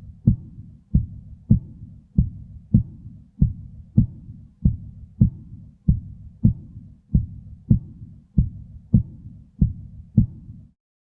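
Recorded normal heart sounds: sharp low thumps in a steady, even rhythm, a little more than one every half second, stopping shortly before the end.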